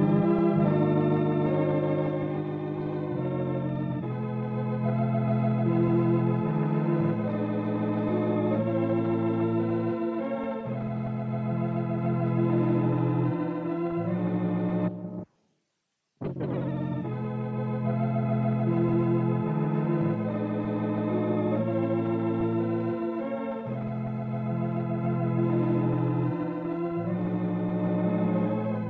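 Organ music playing slow, sustained chords that change every second or two, cut by about a second of silence halfway through.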